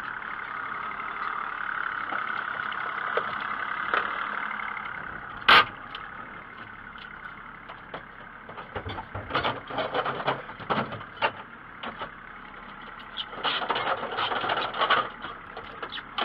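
Boat engine idling steadily, with one sharp knock about five and a half seconds in. From about halfway on, irregular clanks and rattles of a boat anchor and its chain being handled.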